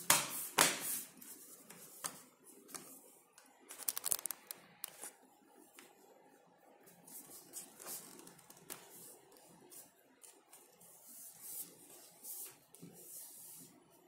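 Snap clips of a Lenovo Flex 2-14 laptop's plastic bottom cover clicking into place as the cover is pressed down and squeezed along its edges, with a quick run of clicks about four seconds in and softer rubbing and tapping of hands on the case.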